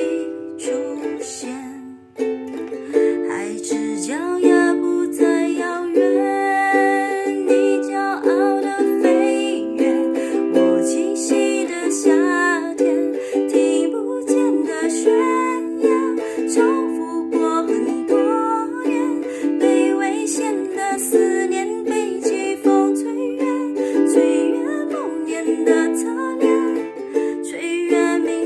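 Ukulele playing an instrumental passage with no singing, briefly dropping away about two seconds in before carrying on.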